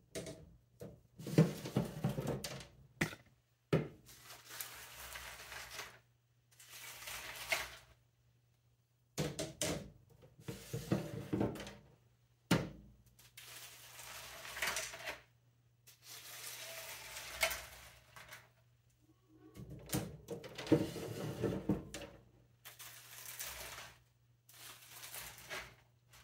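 Dried beef jerky being pushed by hand off a dehydrator tray's mesh sheet and dropped onto a metal baking sheet: repeated rustling, scraping swishes and brittle clattering of the stiff strips, with a few sharp clicks. A low steady hum runs underneath.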